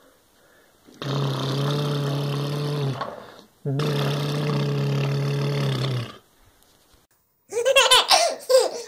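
Two long, steady roars in a deep voice, each about two seconds and held at one pitch, voicing a toy creature. Near the end a baby laughs.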